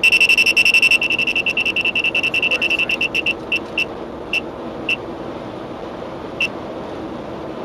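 Uniden R7 radar detector's K-band alert beeping at the Redflex camera van's radar: a fast run of high beeps that slows over the first three seconds, then single beeps spaced further apart, the last about six seconds in, as the signal weakens. Steady road and engine hum from inside the car's cabin underneath.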